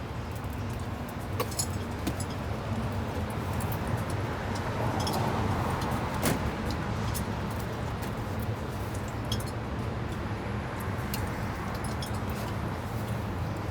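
Food stall kitchen work: a steady low hum with a swelling background hiss, broken by scattered light metallic clicks and clinks of utensils.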